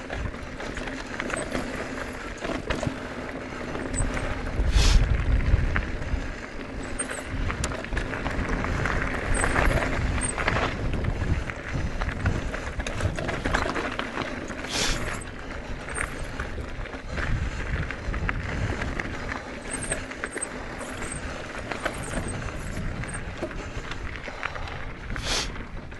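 Mountain bike rolling over a rough dirt trail: tyre noise, chain and frame rattling with small clicks, and gusts of wind on the microphone. Three short sniffs come about ten seconds apart.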